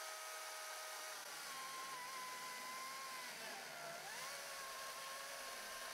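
Stihl MSA 220 C battery chainsaw, faint, running with a steady electric whine and starting to cut into stacked 4x4 lumber about a second in. The whine sags in pitch under the load, dips deepest about four seconds in, then picks back up.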